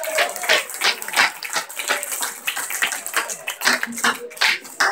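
Irregular hand claps from a congregation, mixed with voices.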